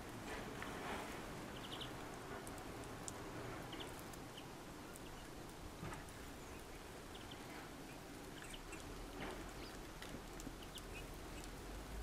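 Faint short chirps and ticks of small songbirds feeding at a seed tray, scattered irregularly over a steady low hiss.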